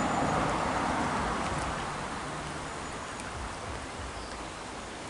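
Shallow stream flowing past a stone bridge: a steady rush of water, a little louder in the first couple of seconds.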